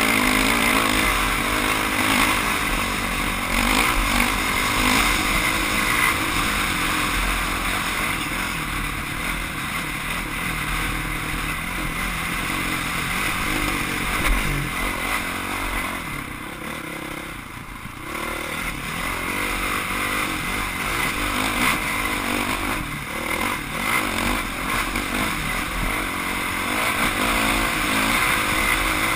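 Dirt bike engine running and revving up and down as it is ridden over an off-road course. It eases off for a moment a little past halfway, then picks up again.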